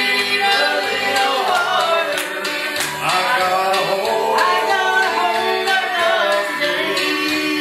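A man and a woman singing a gospel song together into microphones, with acoustic guitar accompaniment.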